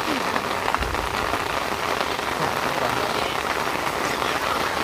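Heavy rain falling steadily on foliage and wet ground.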